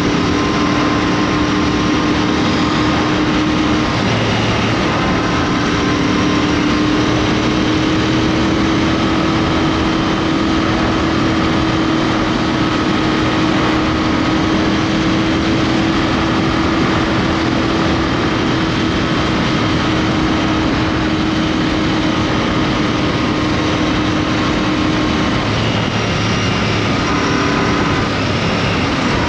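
Royal Enfield Interceptor 650's parallel-twin engine running at a steady cruise under a loud rush of wind noise. The engine tone dips briefly about four seconds in and falls away near the end.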